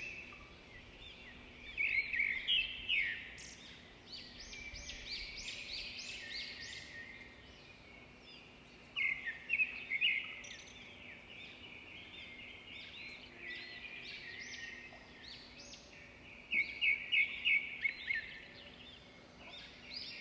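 Small birds chirping and singing in quick repeated phrases, loudest in clusters about two seconds in, around nine seconds and again near the end, over a faint steady low hum.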